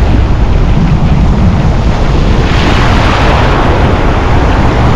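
Ocean surf washing and hissing over a shallow beach, with heavy wind buffeting on the microphone; a wave rushes in about halfway through, bringing a louder hiss of foam.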